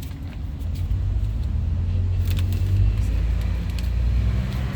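Light clicks and crinkles from hands working inside an opened car door, over a steady low rumble, ending in one sharp snap.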